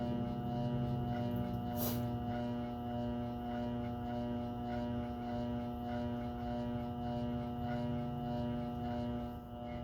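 Treadmill motor running at a steady speed on its speed controller, giving a constant electric hum with a whine of overtones. One sharp knock sounds about two seconds in.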